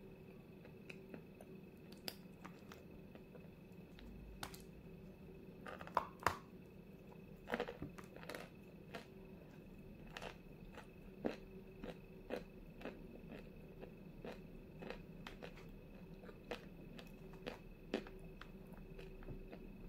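Close-up crunching and chewing of a dry white lump of edible clay ('Zefirka'), with many sharp crisp cracks, a few louder bites among them.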